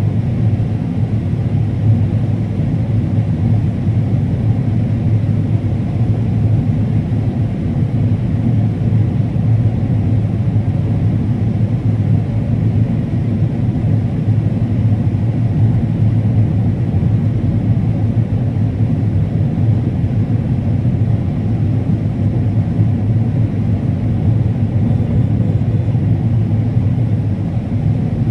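Combine harvester running steadily while harvesting corn: a continuous low engine and machinery drone.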